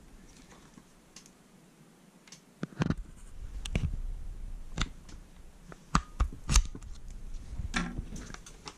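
Metal clicks and knocks of a hand tool working at the rear takedown pin of a full-metal airsoft M4 receiver; the pin is captive and does not come out. After a quiet start, a run of irregular sharp clicks begins about three seconds in.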